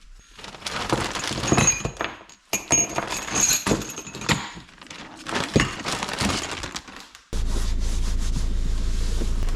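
Metal sockets and extensions clinking and clattering as they are picked out of a tool set, with short metallic rings among the knocks. About seven seconds in this cuts abruptly to the steady low hum of a diesel car engine idling while it warms up in the cold.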